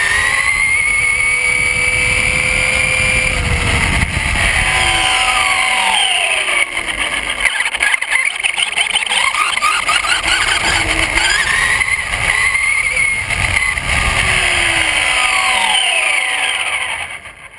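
Brushless electric motor and drivetrain of a Traxxas Slash RC truck whining, the pitch rising as the truck speeds up and falling as it slows, several times over, over a low rush of tyre and wind noise on the on-board camera. The sound fades out near the end.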